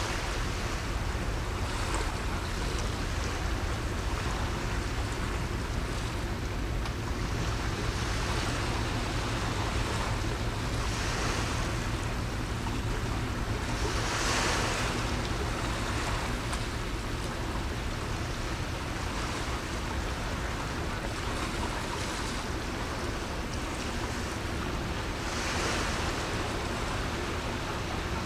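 Sea waves washing steadily, swelling louder a few times, the strongest about halfway through, over a constant low rumble of wind on the microphone.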